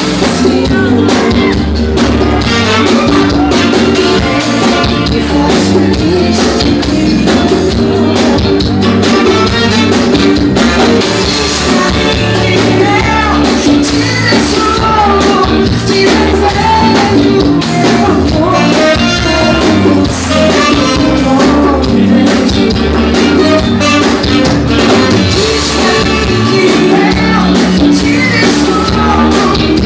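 Live brega band playing loud, with sung vocals over electric guitar and a steady beat, heard from within the audience.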